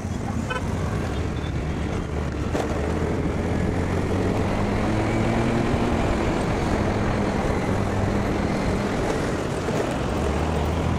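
Scooter being ridden, its small engine running under a steady rush of wind and road noise, the engine note climbing a little around the middle.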